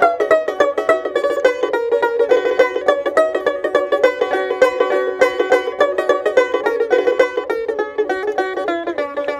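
Dotara, the Bengali folk lute, played solo as an instrumental break between verses: a fast, continuous run of plucked notes.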